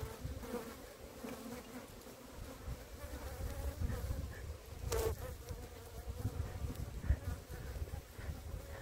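Italian honeybees buzzing in numbers around an opened hive, a steady hum. A single sharp knock cuts through about five seconds in.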